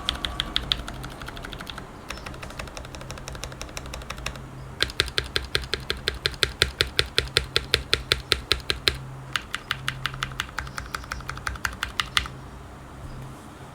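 Typing on a custom acrylic-case mechanical keyboard with lubed and filmed SP-Star Purple switches and PBT cherry-profile keycaps: fast runs of keystrokes in several bursts with short pauses, stopping near the end.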